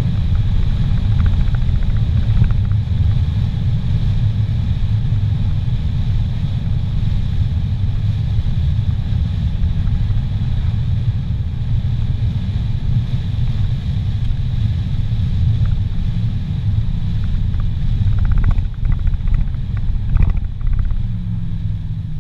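Steady low rumble of a car driving at highway speed, heard from inside the cabin: engine and tyre noise with no change in pace.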